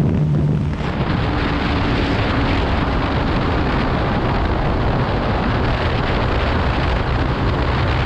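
Heavy wind rushing over the microphone of a Bajaj Pulsar 180F ridden flat out at highway speed, with the motorcycle's engine running steadily underneath. The engine note is clear for about the first second, then the wind rises and mostly covers it.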